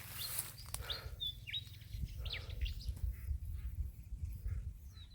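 Birds chirping: a string of short, high chirps, most of them in the first couple of seconds, over a steady low rumble.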